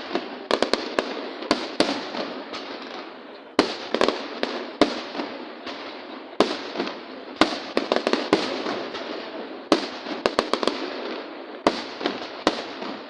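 Aerial fireworks display: sharp bangs of bursting shells, some alone and some in quick clusters of several, every second or two. Each bang trails off into a crackling, reverberating tail.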